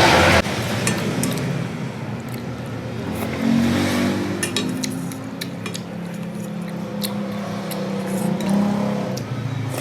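Scattered light clicks and clinks of utensils against a bowl during eating, over a low droning hum that rises in level from about three and a half seconds in and fades near the end.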